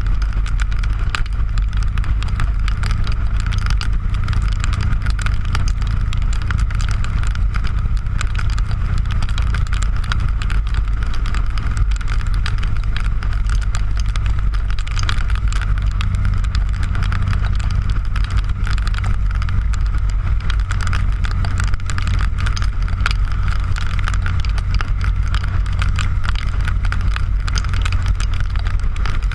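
Motorcycle engine running steadily at cruising speed, with wind rushing over the camera's microphone.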